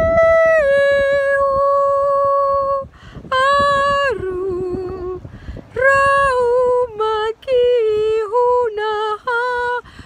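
A woman singing a mantra solo in a high voice: long held notes that step down in pitch, with short breaks between phrases. The notes grow shorter and more broken in the second half.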